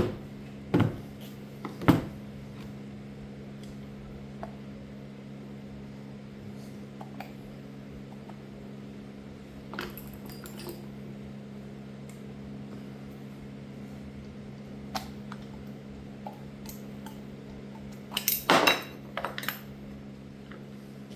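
Small metal parts of a Delco distributor clicking and clinking as it is taken apart by hand: scattered single clicks, then a short cluster of clinks near the end, over a steady low hum.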